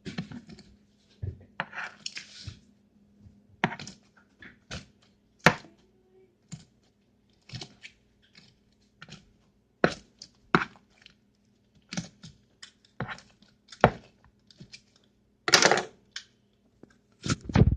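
Irregular sharp clicks and light taps, about one or two a second, from small objects being handled on a hard surface.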